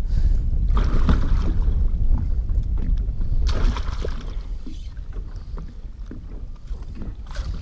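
Lake water splashing and sloshing as a musky thrashes in a landing net at the side of a boat, over a steady low wind rumble on the microphone. The loudest splashes come about a second in and again at about three and a half seconds, and the rumble eases toward the end.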